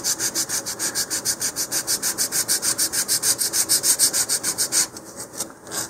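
Sanding block rubbed in quick back-and-forth strokes, about six a second, over the edge of a wooden model-rocket fin to taper it toward a knife edge. The strokes stop about five seconds in.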